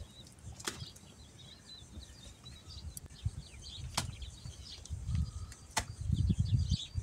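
Small birds chirping and twittering in the background, with three sharp clicks and a low rumbling noise that grows louder over the last couple of seconds.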